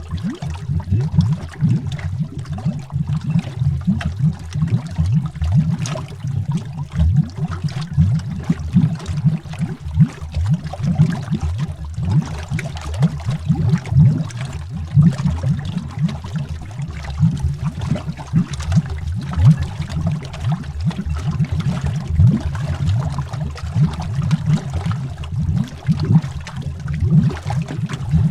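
Underwater bubbling: a continuous stream of low gurgling bubbles, dense and irregular, with a faint crackle above it.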